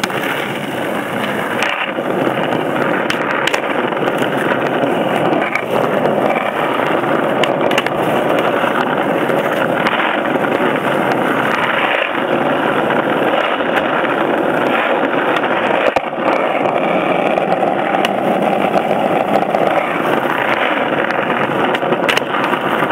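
Skateboard wheels rolling on rough asphalt, a steady loud rolling noise with a few short clicks.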